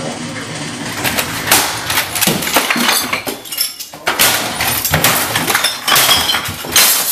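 Eating at close range: repeated, irregular sharp cracks and clicks of shellfish shells being broken open.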